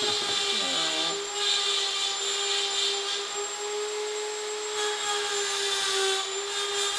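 Rotary carving tool running at a steady high whine, its bit grinding into antler with a rasp that swells and fades several times as it removes material.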